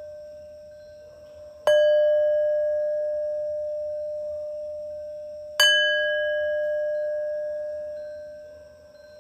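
A resonant metal bell struck twice, about four seconds apart. Each stroke rings on with one steady main tone and a few higher overtones, fading slowly, while the previous stroke is still dying away.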